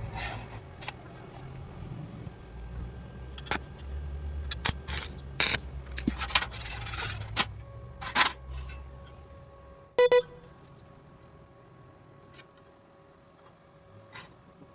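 Steel pieces being handled: a string of metal clinks, knocks and scrapes. About ten seconds in, one loud strike leaves the steel ringing, the ring fading slowly.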